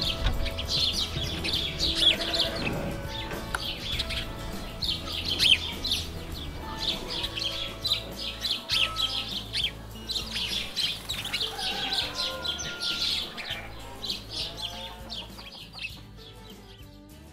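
Farm ambience: many small birds chirping and twittering over a low rumble, with hens clucking now and then. It fades out gradually toward the end.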